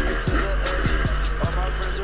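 Music with a steady beat of deep bass-drum hits that drop in pitch, about two a second.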